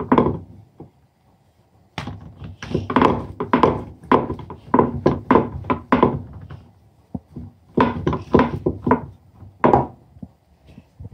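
Wooden rolling pin rolling a stuffed potato paratha out on a round rolling board, making a quick series of wooden knocks and thunks as the pin and board strike the counter. It starts about two seconds in and eases off near the end.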